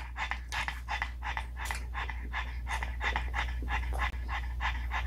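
Pug panting rapidly, about five quick breaths a second in an even rhythm.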